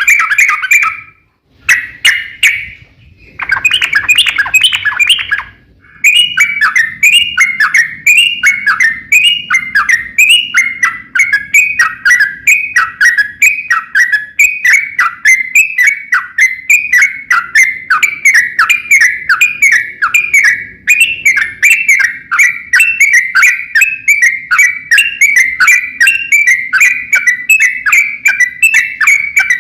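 Yellow-vented bulbul (trucukan) singing: a few short chattering bursts, then from about six seconds in a long unbroken run of quick, repeated down-slurred phrases, about one and a half a second.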